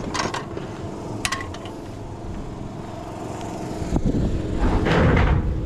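A long steel standing-seam roofing panel being handled and flexed, its sheet metal rattling, over a steady low rumble. There are a couple of light metal clicks in the first second and a half, and the rattling grows louder about four seconds in.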